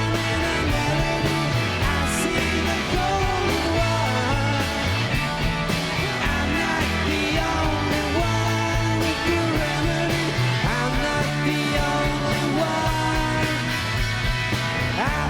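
Psychedelic rock band playing a song, with a repeating bass line under electric guitar, drums and singing.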